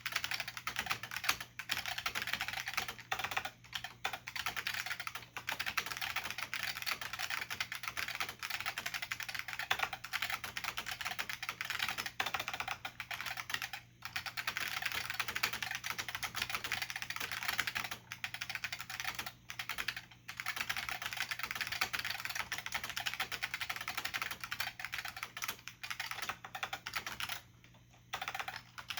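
Continuous typing on an IBM P70 keyboard with Alps plate-spring switches and thin dye-sublimated keycaps: a dense run of key clicks with a few short breaks and a longer pause near the end.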